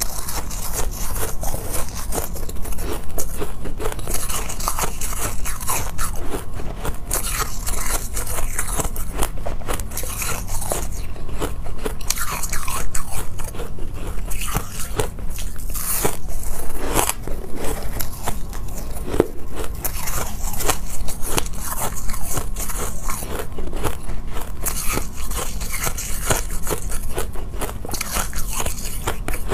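Biting into and chewing chunks of white, frosty, snow-like ice, with dense crunching and crackling from bite after bite.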